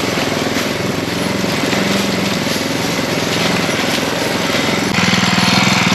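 Mini bike's small single-cylinder engine running steadily at low speed, getting a little louder about five seconds in.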